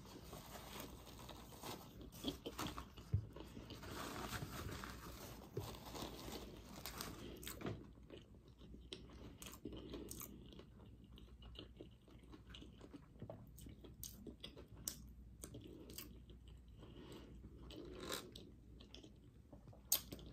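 A person chewing a bite of fried chicken sandwich topped with crispy fried onions, with soft crunches and small wet chewing clicks that come thickly for the first several seconds and more sparsely after.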